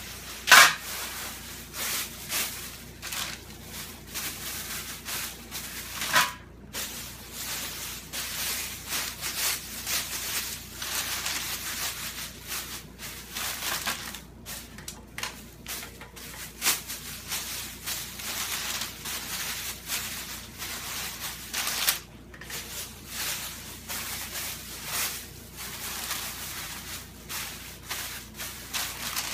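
Thin HDPE plastic grocery bags crinkling and rustling as they are crumpled and pulled apart by hand, in irregular crackles, the sharpest about half a second in.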